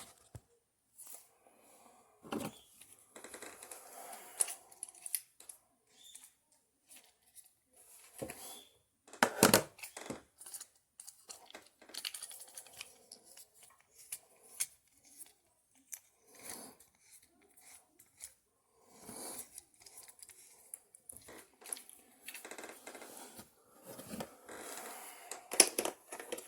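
Hands handling and fitting a Utebit clamp and phone mount: scattered clicks, rustling and a few sharp knocks, the loudest about nine and a half seconds in.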